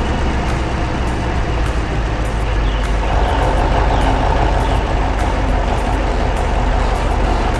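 Heavy truck engine running steadily with a low rumble, growing a little louder about three seconds in.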